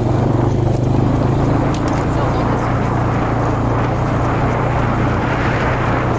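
ATV engine running steadily at low speed while the quad rides over a rough dirt trail.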